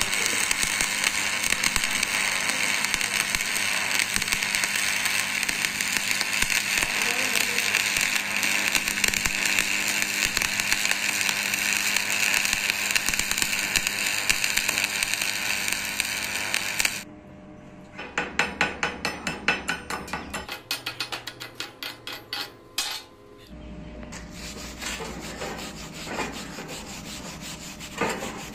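Stick (SMAW) welding arc crackling and frying steadily while a vertical fillet weld is run on steel plate, cutting off abruptly about two-thirds of the way through as the arc is broken. Then come a few seconds of rapid, evenly spaced strokes and scraping as the slag is knocked and brushed off the fresh bead.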